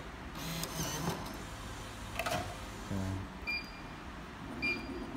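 Coffee vending machine taking payment: a few small mechanical clicks and knocks, then two short, high electronic beeps about a second apart.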